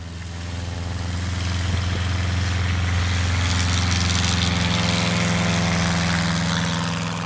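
Single-engine Zenith STOL light aircraft's engine and propeller running at take-off power, steady in pitch, growing louder as the plane rolls toward the microphone and lifts off, then easing slightly near the end.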